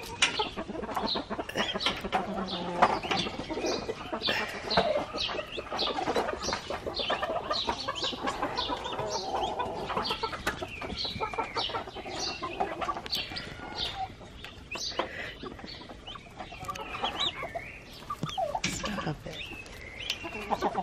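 Newly hatched turkey poults peeping, many short high calls in quick succession, with the turkey hen clucking among them.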